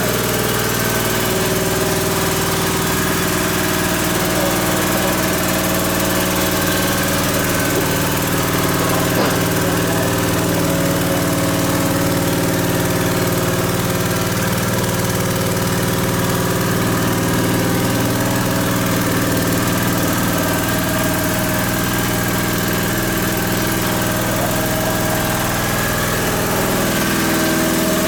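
Yamaha Tricity 125's single-cylinder four-stroke engine idling steadily at an even, unchanging pitch.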